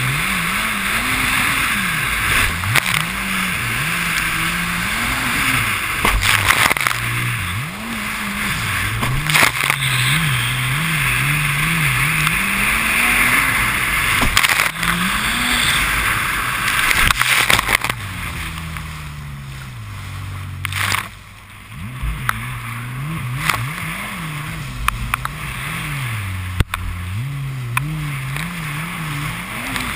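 Jet ski engine running at speed, its pitch rising and falling every second or two as the throttle works and the craft rides over choppy waves, under a steady rushing hiss with occasional sharp knocks. About twenty seconds in the engine eases off briefly, then picks up again.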